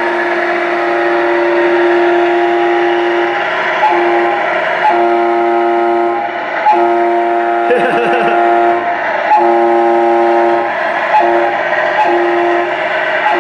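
Simulated multi-tone truck air horn from the Tamiya semi-hauler RC truck's sound unit, sounded again and again in blasts of different lengths, some short and some held for a couple of seconds.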